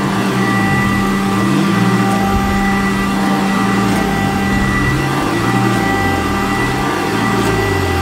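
Sanitaire upright vacuum cleaner running on carpet: a steady motor whine with a low hum that rises and falls over and over as it works.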